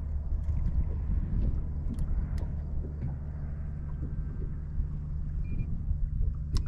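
Wind rumbling on the microphone, a steady low rumble, with a few short sharp clicks.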